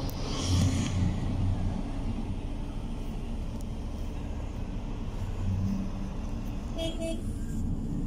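Steady low engine and road rumble inside a moving vehicle, swelling a little at times, with a short high beep about seven seconds in.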